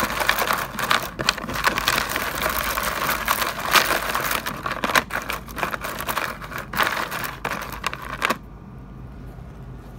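Bicycle chain being swished and rubbed by hand in a shallow tray of cleaning liquid: rapid clinking of the metal links mixed with sloshing liquid. It stops abruptly about two seconds before the end.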